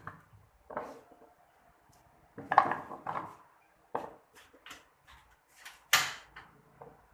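Irregular knocks and clatters of hard objects being handled and set down, a few seconds apart, the loudest about six seconds in.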